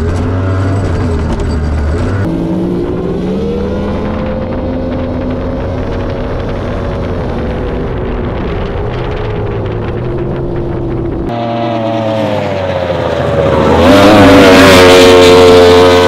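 Tunnel-hull race boat's outboard engine running hard, its pitch rising and falling with the throttle. The sound changes abruptly about two seconds in and again near eleven seconds, and it is loudest over the last two seconds.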